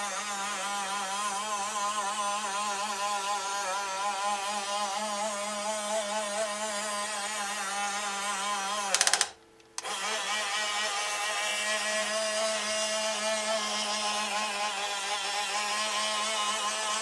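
Slewing motor and plastic gears of a HuiNa 1550 1/12-scale RC excavator turning the upper body round: a steady electric whine with a slightly wavering pitch. About nine seconds in it clatters briefly, cuts out for a moment, then starts up again.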